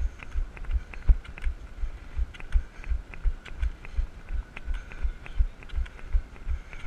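Running on crutches: a steady rhythm of deep thumps, about three a second, with sharp clicks of the crutch strikes on pavement.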